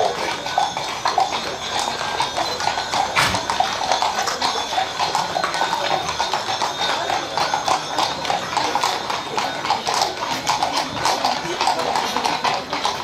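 Horses' hooves clip-clopping steadily, many overlapping hoofbeats as a procession of horses passes.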